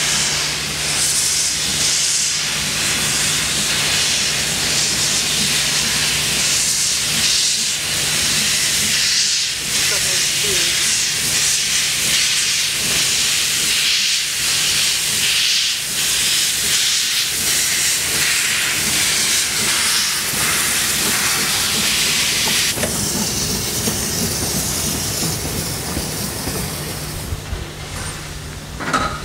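Narrow-gauge 2-10-2 tank steam locomotive hissing loudly as steam blasts from its open cylinder drain cocks, in uneven surges over a steady low hum. The hiss thins out near the end.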